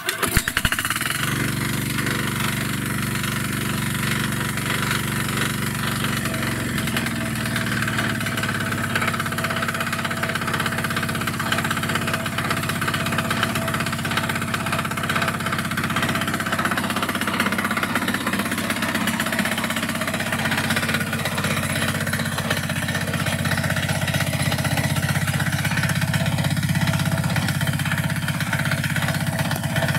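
Kentavr MB 2060D walk-behind tractor's 6 hp single-cylinder diesel engine, pull-started by hand. It catches at once and then runs steadily.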